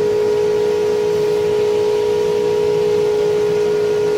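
Steady industrial drone from an open aluminium melting furnace: a constant mid-pitched hum with fainter higher overtones over an even rushing noise, not changing as the charge goes in.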